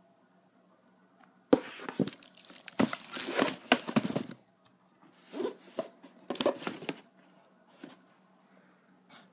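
A cardboard shoe box being handled: two runs of rustling, scraping and crackling, the first starting sharply about a second and a half in and lasting about three seconds, the second shorter around five to seven seconds.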